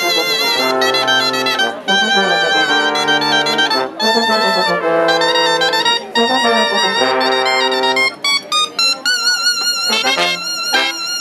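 A cobla (tibles, tenores, trumpets, trombone, fiscorns and double bass) playing a sardana in its closing bars. Sustained full chords give way about eight seconds in to short, detached chords and then high held notes with vibrato.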